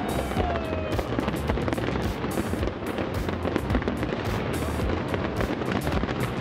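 Fireworks bursting and crackling in quick succession over a steady low rumble, with music playing along.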